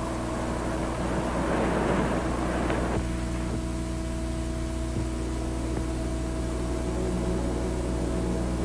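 Steady drone of aircraft engines overhead, with a rushing noise over it that drops away about three seconds in.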